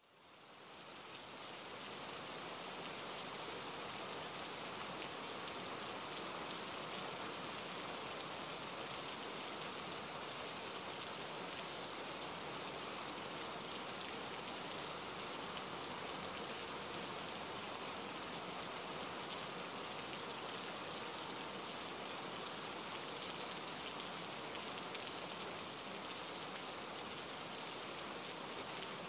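Steady rainfall, an even hiss of many drops that fades in over the first two seconds and then holds unchanged.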